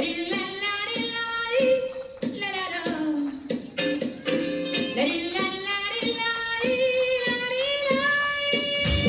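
Song played for a dance: a high sung vocal line with long held notes over light backing. A bass-heavy beat comes in at the very end.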